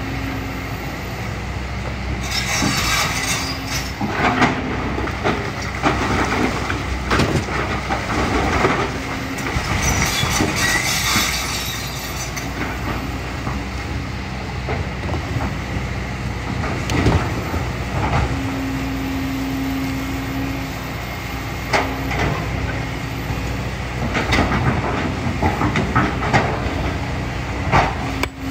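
Kobelco excavator working sand and gravel: its diesel engine and hydraulics run with an intermittent steady hum, while the bucket knocks and scrapes against stones throughout. Two rushing hisses come about two seconds and ten seconds in.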